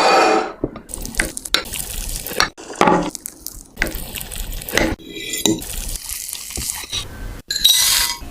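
Kitchen utensils clinking and scraping against a bowl while mixing, with many irregular sharp clicks and short scraping noises.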